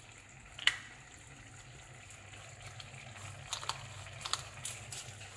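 Hand-twisted salt grinder being turned over a pan of sauce, a few short crunching grinds about half a second apart in the second half. A faint steady low hum lies underneath.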